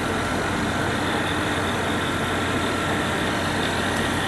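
Steady drone of running plastic-processing machinery, the recycled-pellet drying ovens with their electric motors, with a constant low hum and a faint high whine.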